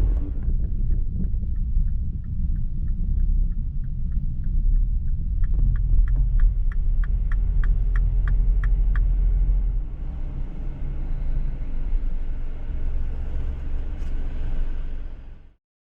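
A car's engine and road rumble heard from inside the moving car. A regular ticking at about three a second runs over it and stops about nine seconds in. The sound cuts off abruptly near the end.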